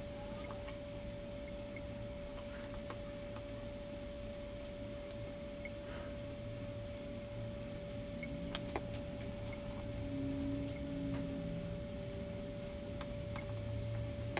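A steady, single-pitch electronic tone over a low room hum, with a few faint clicks.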